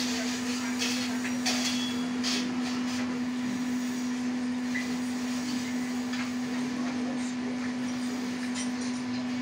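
A steady low hum holding one pitch, over faint room noise with a few light clicks.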